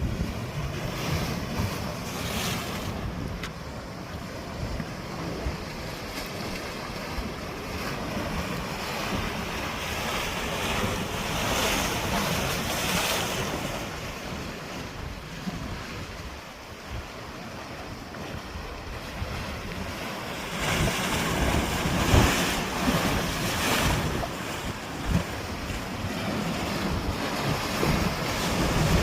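Sea waves surging and washing onto the shore, swelling several times and louder in the last third, with wind buffeting the microphone.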